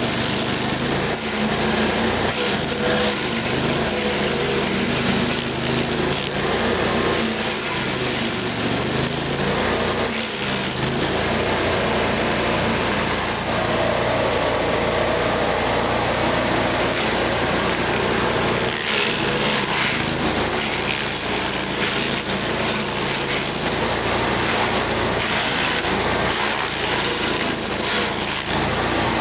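LASKI F500H stump grinder running at working speed, its cutter wheel grinding into an ash stump. A steady engine note sits under the continuous rasp of the teeth chewing wood.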